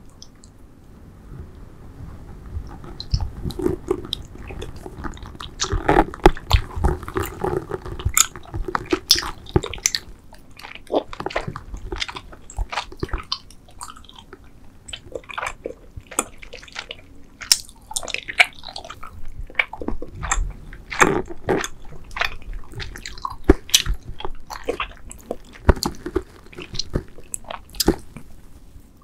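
Close-miked chewing and biting of spider-shaped Trolli gummy candies: an irregular run of sharp, wet mouth clicks and smacks as the soft chewy gummy is worked between the teeth.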